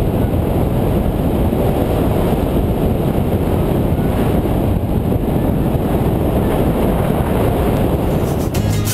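Rushing wind buffeting the microphone of a camera mounted on a hang glider in flight, a steady rough roar of the airflow. Guitar music comes in just before the end.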